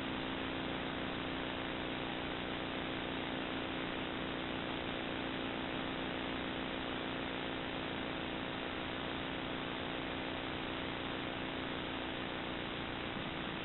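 Steady electrical hum with an even hiss from a nest-box camera's audio feed, unchanging throughout, with no bird calls or other distinct sounds.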